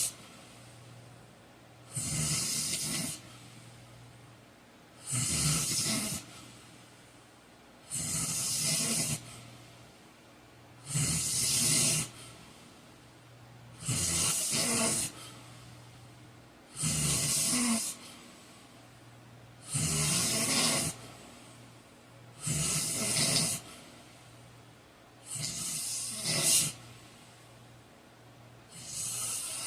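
A heavy-set man snoring in his sleep, about one snore every three seconds, each lasting about a second. A low steady hum sits in the gaps between snores.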